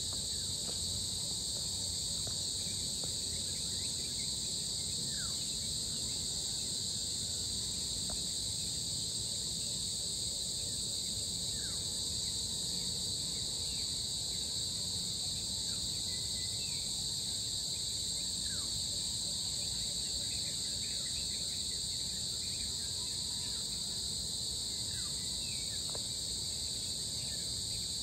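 A steady, high-pitched chorus of insects that keeps up without a break, with a few faint short chirps scattered through it over a low background rumble.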